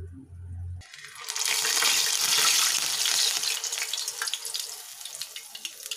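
Urad dal jalebi batter squeezed from a piping bag into hot oil, sizzling with many small crackles as it fries. It starts about a second in, is loudest soon after, and eases off near the end.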